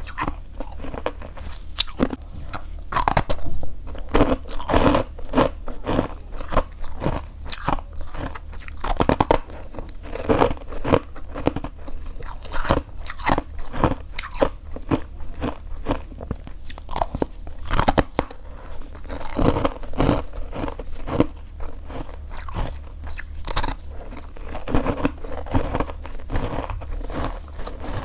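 Freezer frost being bitten and chewed close to the microphone: a dense, irregular run of sharp, crisp crunches, over a steady low hum.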